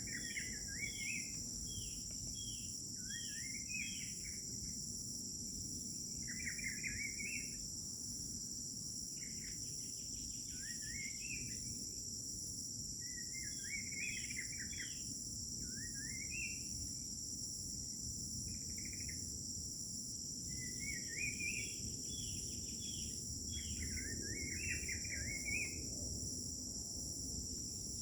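Crickets chirring in a continuous high trill, while a songbird repeats short, quick rising phrases every second or two, over a low steady background noise.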